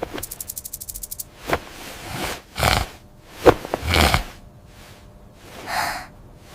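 Cartoon snoring from a sleeping kitten: a fast rattling snore for about the first second, then a run of short, separate snoring breaths at uneven gaps, the loudest about four seconds in.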